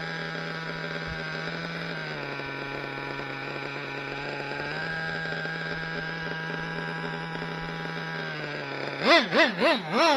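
Kyosho Inferno ST nitro truck's Dynamite .26 engine with a tuned pipe idling steadily, its pitch sagging for a couple of seconds and then picking back up. About a second before the end the throttle is blipped about four times in quick succession, the revs rising and falling with each blip.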